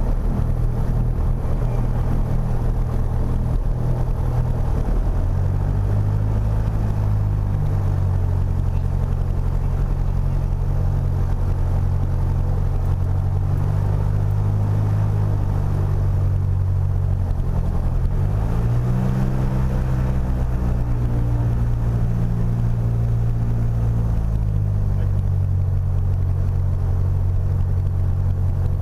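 Piper PA-28 Warrior III's Lycoming four-cylinder engine and propeller running at low power while taxiing, heard in the cockpit. The engine note steps up about five seconds in, rises again after about eighteen seconds, and settles back down about six seconds later.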